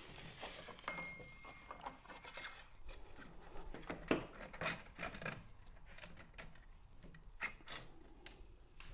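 Abrasive belt being fitted onto a 2x72 belt grinder that is switched off: faint rubbing of the belt against the wheels and frame, with scattered light clicks and knocks as the grinder's arm is handled.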